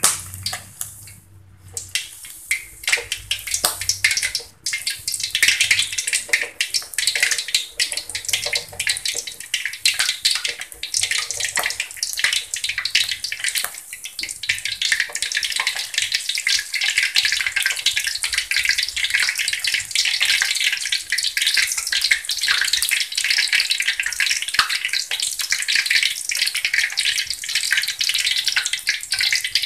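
Hot cooking oil sizzling and crackling as shrimp fritter batter (bakwan udang) deep-fries on a ladle in a wok. It builds up over the first five seconds or so, then stays a steady, dense crackle.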